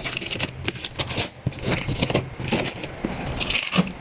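Packaging being handled and opened: irregular crackling, scraping and rustling with sharp clicks.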